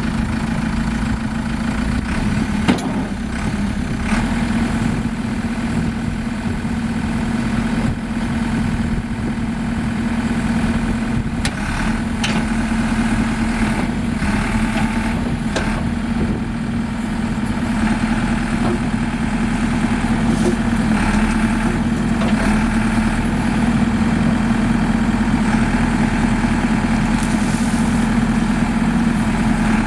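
A 2008 JCB 3CX backhoe loader's diesel engine running steadily at idle, with a few short knocks at about 3, 12 and 16 seconds in.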